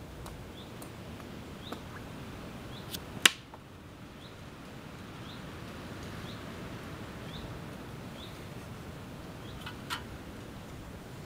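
A small bird repeats one short, falling call note about every three-quarters of a second over a steady outdoor hiss. A few sharp clicks and snaps come through, the loudest about three seconds in, with another near the end.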